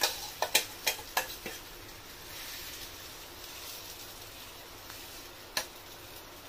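Egg and oats batter sizzling as it hits hot coconut oil in a non-stick frying pan, settling into a steady hiss. A metal spoon clinks several times against the steel bowl and pan as the batter is scraped in and spread, then once more about five and a half seconds in.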